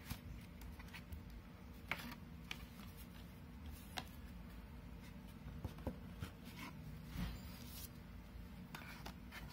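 Faint scattered taps, scrapes and rustles of hands handling a paperboard album box and lifting a hardcover book out of it, over a low steady hum.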